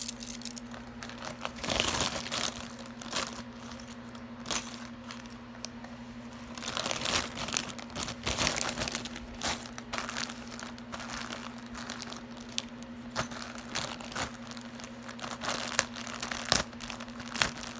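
Small plastic bags crinkling and jewelry clicking and clinking as pieces are handled. The sounds come in short bursts, busiest a couple of seconds in, around the middle and near the end, over a steady low electrical hum.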